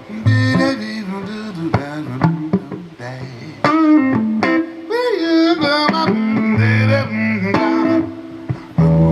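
Live blues band playing an instrumental break, a guitar soloing with bent, wavering notes over bass and chords.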